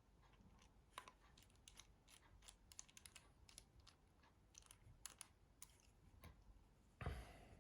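Faint, irregular little clicks and ticks of a precision screwdriver and tiny screws being worked into a Nokia 308/310 phone housing during assembly, with one short, louder scrape about seven seconds in.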